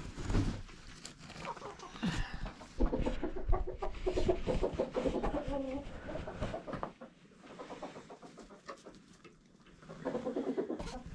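Domestic hens clucking, a run of calls about three seconds in and another near the end, with a few scattered knocks.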